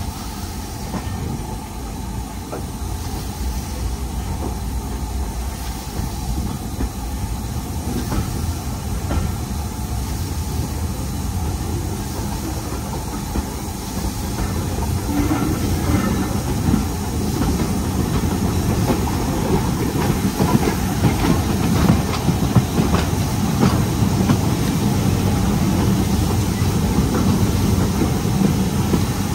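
Steam-hauled passenger train behind an LMS Black 5 locomotive running along the line: a steady rumble with a fast rattle of wheel clicks that grows louder from about halfway through.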